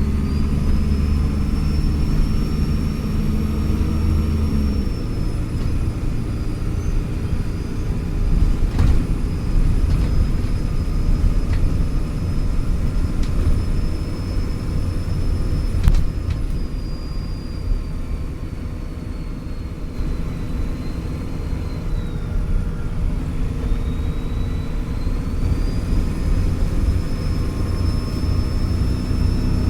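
Alexander Dennis Trident Enviro400 double-decker bus's diesel engine running under way, with a high, steady turbocharger whistle over the engine rumble. The whistle sags in pitch about two-thirds of the way through and then climbs back. The engine's low note is strongest for the first few seconds, and there are a couple of sharp knocks.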